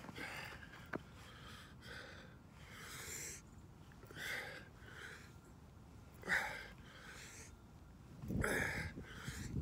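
A man breathing hard with exertion during kettlebell swings: a string of short, forceful breaths about every second or so, the loudest near the end. A single click about a second in.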